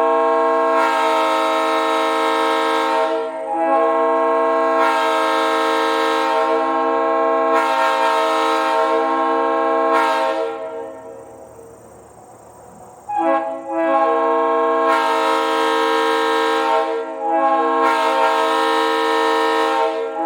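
Three-chime locomotive air horn blown in long, loud sustained blasts, a steady multi-note chord. Its sound changes slightly at short breaks between blasts. About ten seconds in it cuts off and trails away, then a new blast starts a few seconds later and holds.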